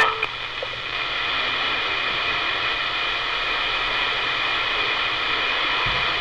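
CB radio receiver hissing with steady band noise and static on an open channel, no station transmitting, after the received signal drops away about a quarter-second in.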